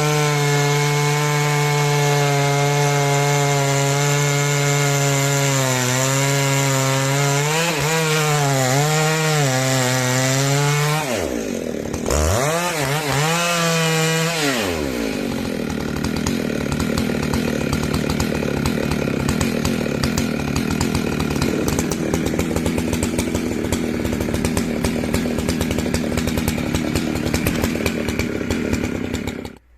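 Chainsaw running at high revs and cutting wood, its pitch dipping and recovering as the chain loads in the cut. About eleven seconds in the revs drop sharply and climb again, followed by a rougher, noisier sawing sound that cuts off abruptly near the end.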